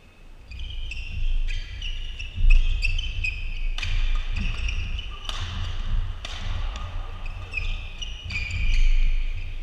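Badminton doubles rally on a court mat: sports shoes squeaking and thudding as the players move and lunge, with sharp cracks of rackets hitting the shuttlecock.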